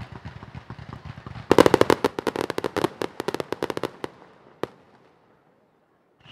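Fireworks going off: a low rumble of bursts, then from about a second and a half in a rapid run of sharp crackling pops, the loudest part. The pops thin out by about four seconds, one last pop follows, and the sound dies away.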